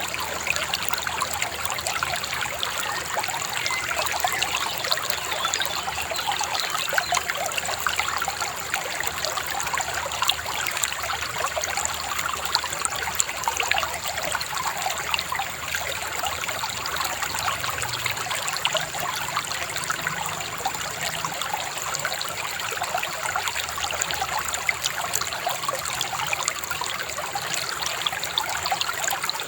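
A river babbling and trickling steadily, with a faint steady high whine above the water.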